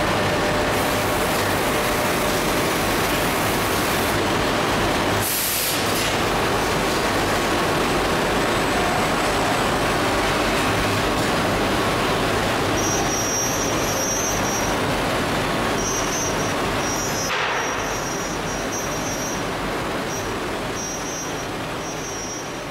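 Homag BMG 512 five-axis CNC machining centre running on a wooden workpiece: a loud, steady, dense machine noise. Two short bursts stand out about five and seventeen seconds in, and a high whine comes and goes in the last third. The noise grows quieter near the end.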